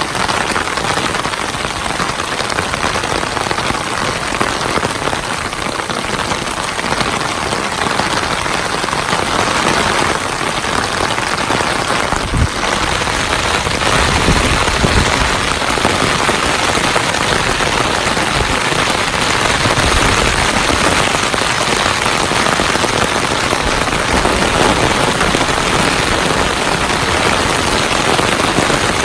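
Heavy rain pouring down in a steady, dense hiss. A low rumble swells under it about twelve seconds in and again around twenty seconds.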